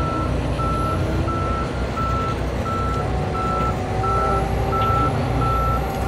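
Reversing alarm of a heavy construction vehicle beeping steadily, about one beep every 0.7 seconds, over a constant low engine rumble.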